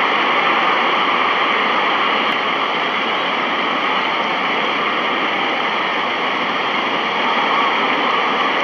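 Steady, loud rushing noise with no speech, music or distinct events.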